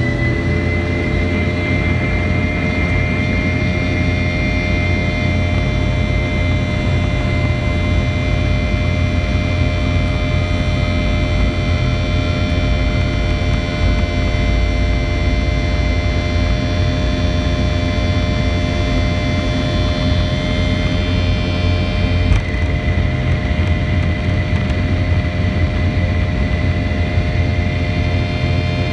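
Boeing 717's rear-mounted Rolls-Royce BR715 turbofan at takeoff power, heard inside the cabin right beside the engine: a loud, steady jet roar with a heavy low rumble and several high whining tones through the takeoff roll and climb-out. A brief click about three quarters through.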